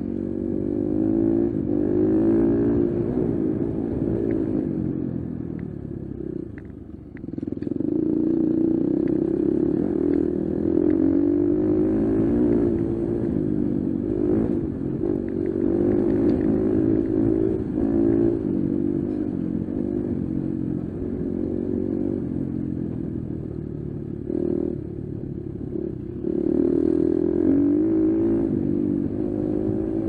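Enduro dirt bike engine, heard from the rider's own bike, revving up and down as it climbs a rough dirt trail. The throttle is rolled off briefly about a quarter of the way through and again near the end, with occasional knocks from the bike over the rough ground.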